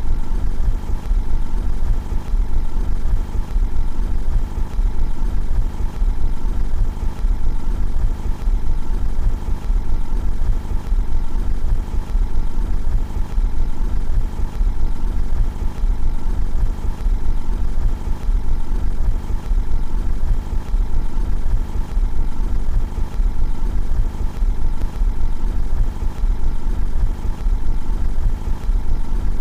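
Car engine idling steadily, heard from outside the car, a constant low hum with no revving.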